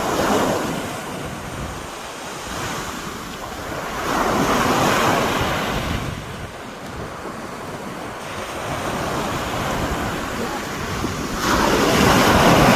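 Rough sea: waves surging and breaking in a steady roar, swelling louder three times: at the start, about four seconds in, and near the end. Wind buffets the microphone throughout.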